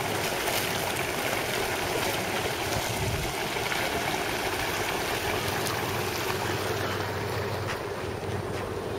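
Geothermal mudpot boiling, a steady bubbling and churning of hot mud and water.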